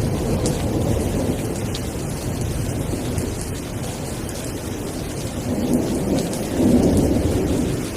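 Steady rain with a low rumble of rolling thunder underneath; the rumble swells a little near the end.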